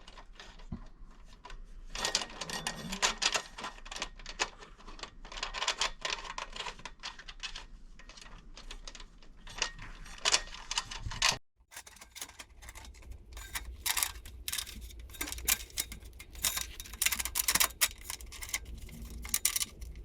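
Rapid, irregular clicking and rattling of wing nuts being spun by hand on bolts while the sluice box's shelves are adjusted and tightened, with a brief break a little past halfway.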